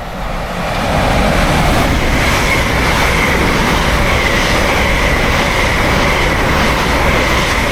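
A passenger train pulling into the station, its wheels rumbling over the rails with a steady high squeal, growing louder over the first second and then holding loud.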